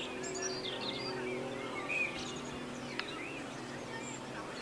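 Birds chirping, many short calls, over a steady low hum, with a single sharp click about three seconds in.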